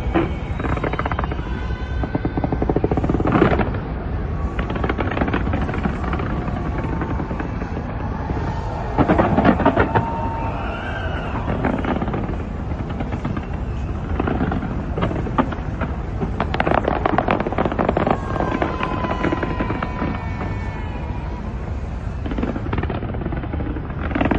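A fireworks display going off in quick succession, with rapid bangs and crackling. The heaviest volleys come about three seconds in, around nine to ten seconds in, and again from about fifteen to nineteen seconds in.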